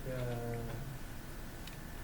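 A brief voiced sound from a man, a spoken fragment, for the first second, then quiet room tone with a faint click near the end.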